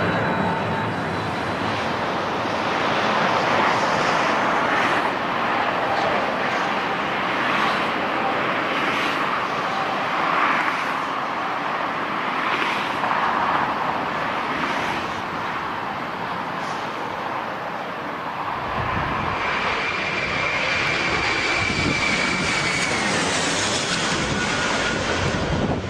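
Aircraft engines running loudly with a steady rush of noise. About two-thirds of the way through the sound changes to a heavier low rumble with a thin high whine.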